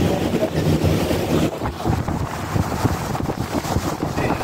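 Wind buffeting the microphone on the open deck of a moving sightseeing boat, over the boat's low steady engine hum and the rush of water along the hull.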